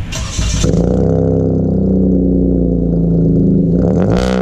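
Toyota Wigo engine running steadily through an aftermarket full exhaust system, then a quick blip of the throttle near the end, its pitch rising and falling back. A short whoosh sounds at the very start.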